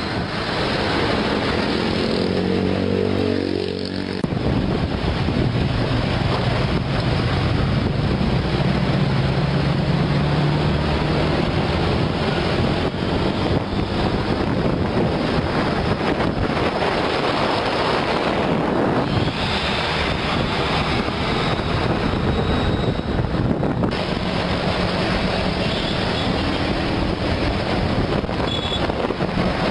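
Heavy truck diesel engine running at road speed, heard from a vehicle moving alongside, with steady road and wind noise on the microphone.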